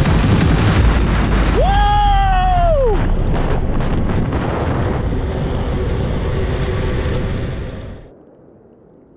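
Wind rushing and buffeting on the camera microphone, with the roll of inline skate wheels on asphalt at about 25 mph; it fades out near the end. About two seconds in, a single pitched tone rises, holds and drops away over about a second and a half.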